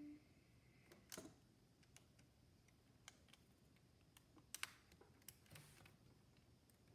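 Faint, scattered clicks and taps of small plastic building bricks being handled and pressed together, the sharpest about four and a half seconds in.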